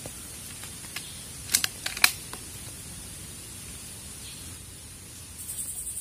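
A quick run of sharp clicks and taps about one and a half to two seconds in, the last one the loudest, with a lone click just before, over a steady high hiss.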